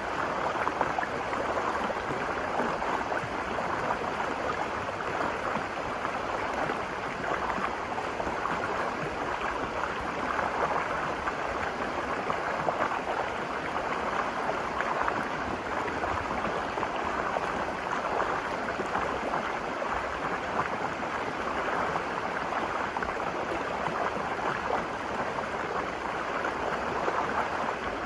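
The Virgin River flowing over rocks: a steady rush and gurgle of running water.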